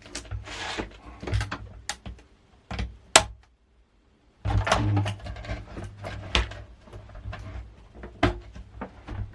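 An LCD monitor's panel frame being prised apart by hand: a run of sharp clicks, snaps and scraping from plastic clips and thin sheet metal, with a pause of about a second some three and a half seconds in.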